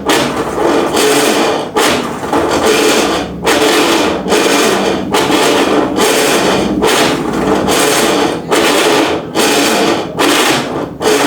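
Colormaq washing machine agitating with a loud rasping, grinding noise. It comes in repeated strokes about every one and a half to two seconds, with short breaks as the agitator reverses. The noise is the sign of a badly worn drive part behind the pulley, which the technician first suspects is the gear.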